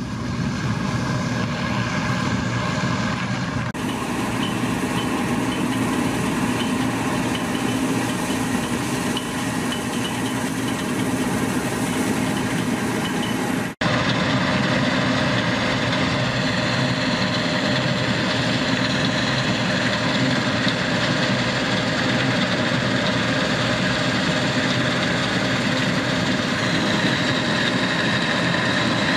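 Bizon Z056 combine harvester running as it harvests, a steady drone of its diesel engine and threshing machinery. The sound changes abruptly about 4 and 14 seconds in.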